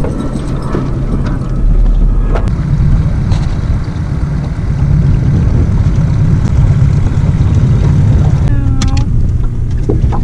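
Boat's outboard motor running steadily, a low drone. A short high whine sounds about a second before the end.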